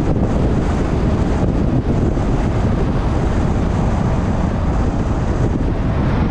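Steady rush of wind and road noise from a car being driven, with wind blowing over the microphone.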